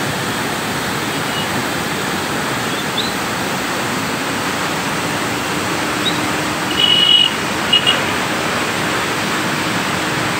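River floodwater rushing and foaming through the open sluice gates of a barrage, a steady, loud rush. About seven seconds in, two short bursts of high beeps, like a vehicle horn, stand out above it.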